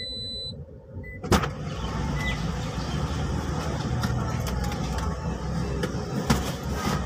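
Car cabin sound of a parked taxi with a steady low rumble, broken by scattered small clicks. A short electronic beep sounds at the start, a sharp knock about a second in, and a click about six seconds in as a car door is opened.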